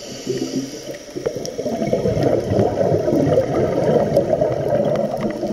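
Scuba regulator breathing picked up underwater: a faint hiss of an inhale early on, then a long exhale of bubbles gurgling out of the regulator's exhaust for several seconds.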